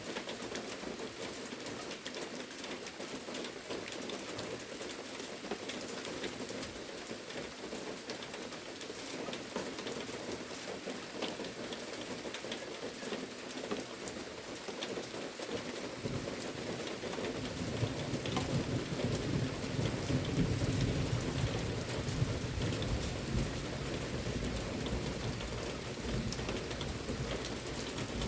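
Steady rain falling, with many individual drops ticking on a hard surface. From about halfway in, a low rumble of thunder swells and then slowly eases off.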